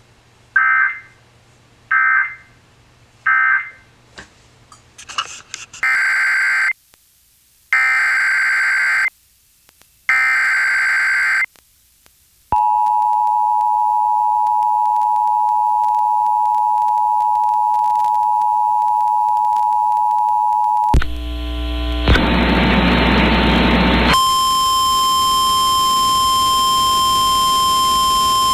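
Emergency Alert System data and alert tones. First comes an end-of-message burst of three short beeps. Next a SAME header plays as three warbling data bursts, each about a second long, followed by the two-tone EAS attention signal held steady for about eight seconds, a burst of loud static for about three seconds, and then a steady single-pitch alert tone, the NOAA Weather Radio warning tone.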